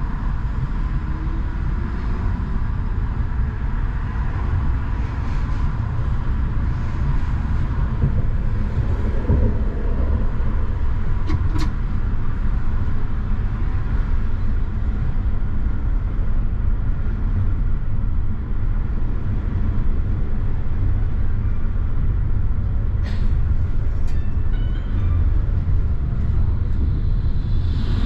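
Škoda 39T low-floor tram running along the track, heard from inside the vehicle: a steady rumble of wheels on rails under a steady whine from the drive, with a few sharp clicks around the middle and again about two thirds of the way through.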